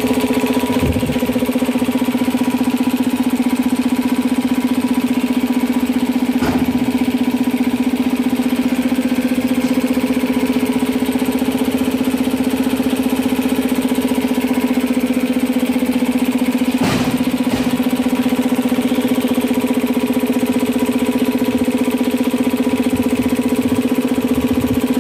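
Elgi 3 HP two-cylinder reciprocating air compressor, belt-driven by its electric motor, running steadily while it pumps the receiver tank up toward 10 kg/cm². It runs smooth and even, with no knock from the crank.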